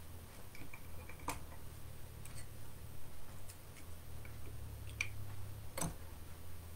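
Faint, irregular clicks and taps of small objects being handled, the sharpest near the end, over a steady low hum.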